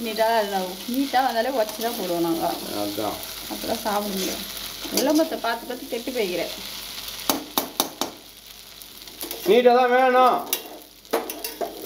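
Steel ladle scraping and tossing noodles in a hot metal kadai, with squeaky scrapes of metal on metal over the sizzle of stir-frying. There are sharp clicks of the ladle knocking the pan about seven seconds in.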